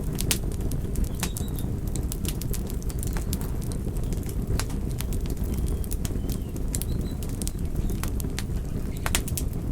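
Campfire crackling: sharp, irregular pops and snaps over a steady low rumble of burning flames.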